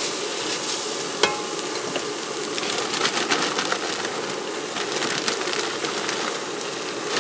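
Shredded cabbage coleslaw mix sizzling and crackling in hot bacon fat in a cast iron Dutch oven as it is stirred in with a spatula, with a sharp click about a second in.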